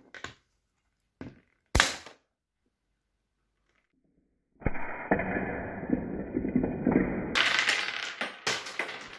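Sharp plastic clicks and snaps from a rubber-band-powered Lego pistol with a slide action, three in the first two seconds with the loudest near the end of them. About halfway through, a long, loud, dense rattling clatter starts and continues.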